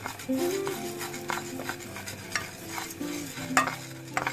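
Split urad dal being stirred and scraped with a spatula in a hot nonstick pan, the dry lentils rattling across the pan surface in a series of uneven strokes as they roast toward golden brown.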